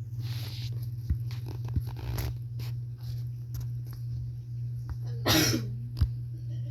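A person coughs once, briefly, about five seconds in, over a steady low hum and scattered light clicks and taps.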